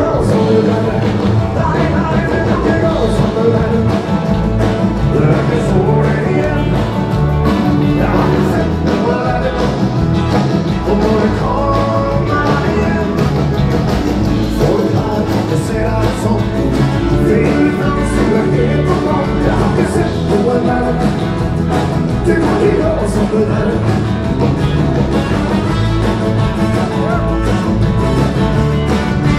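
Live band playing loud rock-and-roll dance music with electric guitar and a singer.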